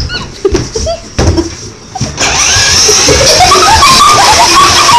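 A few knocks and handling clicks, then about two seconds in a toy motorcycle's electronic engine-revving sound effect starts, loud and steady with a wavering whine.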